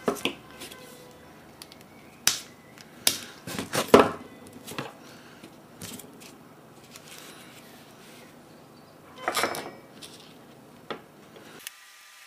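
Scattered sharp clicks and taps from a small circuit board being handled, as a component's wire leads are pushed through the board and bent over by fingers. The loudest snaps come about two to four seconds in, and a short rustling cluster follows near the nine-second mark.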